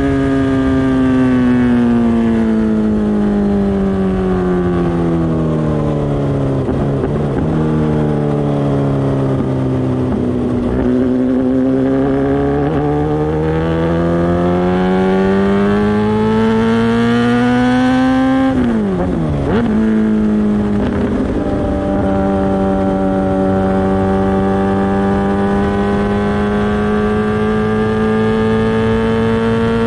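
Kawasaki ZX-10R's inline-four engine through an SC-Project exhaust under way. The note falls for about ten seconds as the bike slows, then climbs again. A little past the middle it drops sharply and picks up at a lower pitch as it shifts up a gear, then holds a steady, slowly rising note.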